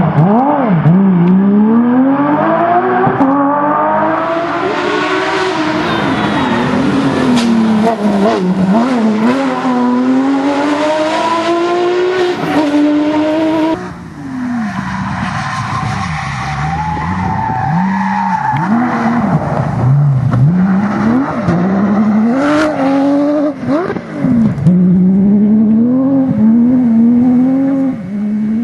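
Porsche 911 GT3 rally car's flat-six engine at full throttle, revving up and dropping back again and again through gear changes and lifts. The sound changes abruptly about halfway through, where a second shot of the car begins.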